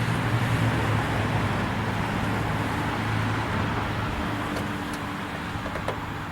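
Steady rumble of road vehicles, with a single small click near the end.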